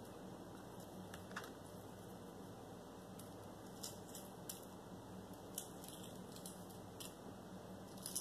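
Faint, scattered sharp clicks and crackles of a hard-boiled egg's shell being cracked and peeled by hand, over a steady low hum.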